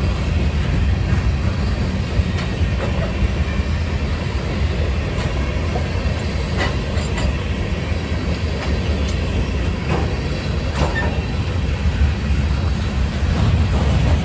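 Freight train cars rolling past at close range: a steady low rumble of steel wheels on rail, with a few sharp clicks from the wheels scattered through it.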